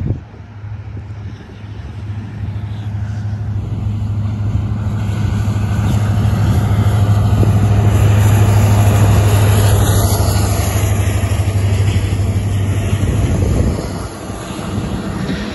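Two EMD diesel-electric locomotives, an SD70ACE leading an SD70MAC, passing at the head of an empty coal train. Their 16-cylinder 710 diesel engines make a steady low drone that grows louder as the lead unit comes alongside, then falls off near the end.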